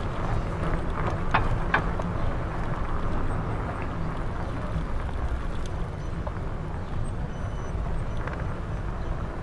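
Steady low rumble of a bicycle rolling along a city street, with two sharp clicks about a second and a half in.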